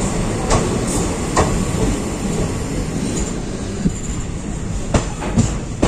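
Express train running on the rails, heard through an open carriage doorway: a steady rumble of wheels and running gear, with a few sharp clacks as the wheels cross rail joints.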